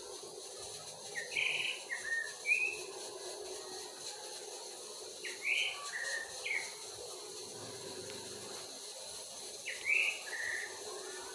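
A bird singing three short phrases of clear whistled notes, about four seconds apart, each phrase two to four notes with the first sliding upward. A steady faint hiss runs beneath.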